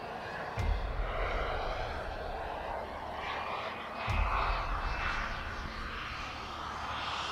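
Radio-controlled scale model of a Horten 229 flying wing passing overhead, its small jet engine giving a steady rushing sound with a thin high whine in the middle. A low rumble starts suddenly about half a second in and again about four seconds in.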